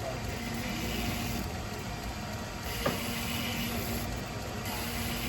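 Belt grinder running with a 220-grit belt, its motor humming steadily under a grinding hiss as a stainless cleaver's edge is sharpened; the hiss swells and fades every second or so as the blade is worked across the belt. One sharp click about three seconds in.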